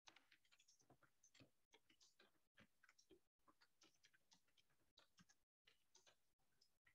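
Faint computer keyboard typing: quick, irregular key clicks, several a second.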